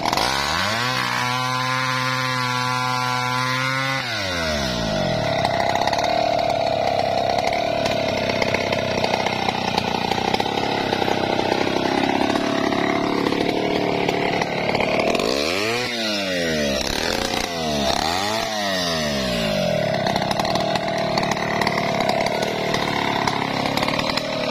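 Stihl 070 two-stroke chainsaw running hard, cutting into a teak trunk at its base. Its revs fall away about four seconds in, and in the middle the throttle is opened and closed several times, the engine pitch sweeping up and down.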